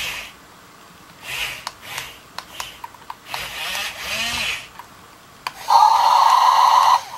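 Small geared electric motors of a Mofun 1026 toy RC excavator whirring in short bursts as the boom and bucket are raised. About six seconds in, a louder, steady buzzing tone lasts just over a second.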